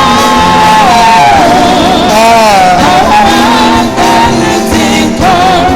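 Live gospel worship music: a lead voice holds long, wavering notes between sung lines over instrumental accompaniment.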